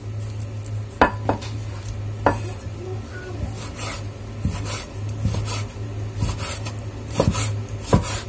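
Kitchen knife slicing raw chicken breast fillet thinly on a wooden cutting board, the blade knocking on the board at irregular intervals between softer cutting strokes. A steady low hum runs underneath.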